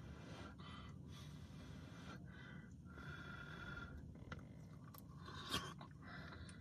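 A man eating chicken corn chowder from a spoon: faint chewing and mouth sounds, with one short tap of the spoon against the cup about five and a half seconds in.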